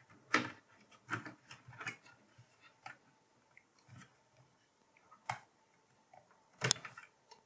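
Irregular small clicks and light scrapes of a 2.5-inch Goodram CX400 SATA SSD being slid out of its drive bay in a mini PC and handled, with sharper clicks about five seconds in and again near the end.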